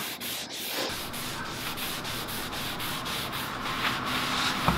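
Cloth rag rubbing wood stain into a bare wooden tabletop: quick back-and-forth wiping strokes, about four a second, each a short dry hiss.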